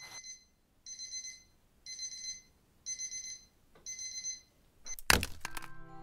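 Brief chalk scratching, then a Braun digital alarm clock beeping: four short bursts of rapid high beeps, about one a second. About five seconds in, a loud knock cuts the beeping off and music begins.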